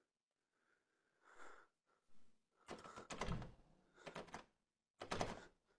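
Knocking on a door: three bursts of quick heavy knocks and thuds, the first about two and a half seconds in, the others about a second apart, with faint rustling before them.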